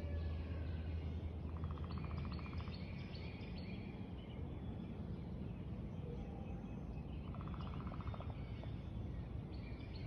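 Wild birds chirping and singing in the trees, with a fast trill about a second long heard twice. A low steady hum fades away in the first couple of seconds.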